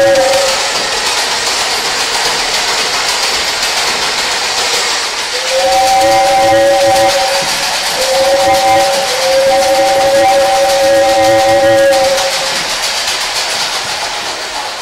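A steady loud hiss, with a whistle-like chord of a few held notes sounding over it at the very start and again in three blasts from about five and a half to twelve seconds in.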